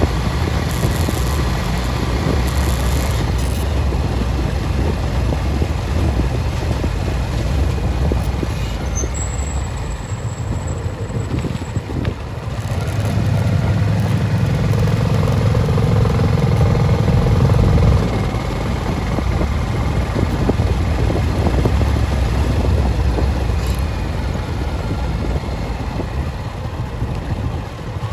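A road vehicle driving along, heard from on board: a steady low rumble of engine, tyre and wind noise, which grows louder for a few seconds around the middle.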